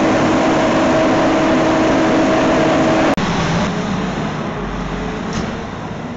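Fire apparatus running loud as it pulls out of the station bay on a call, with a steady tone held over the engine noise for about three seconds. After that the noise cuts and fades away as the truck leaves.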